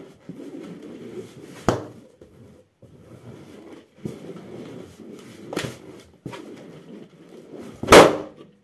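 A large latex balloon being squashed and rubbed under a socked foot on carpet, with two sharper knocks as it is stomped, then bursting with one loud pop near the end.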